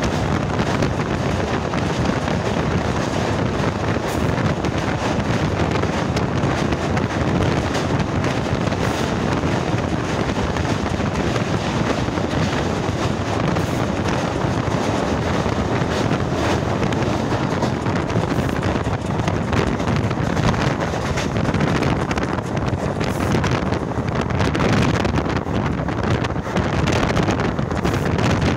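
Steady rush of wind buffeting the microphone over the running noise of a moving train, heard from its open doorway.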